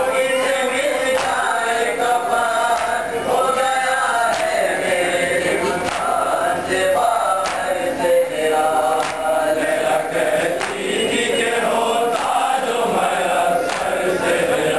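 A group of men chanting a nauha, a Shia lament, in unison, with chest-beating (matam) slaps keeping time.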